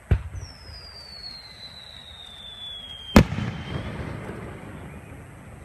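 An aerial firework shell is launched from its mortar with a sharp thump and whistles as it climbs, the whistle sliding down in pitch for about three seconds. The shell then bursts with a loud bang about three seconds in, and a rumbling echo dies away after it.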